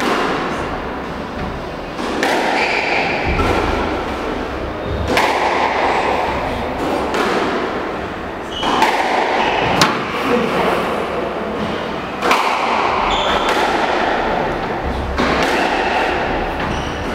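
Squash rally: the ball cracks off the players' rackets and thuds against the court walls, a sharp hit every couple of seconds.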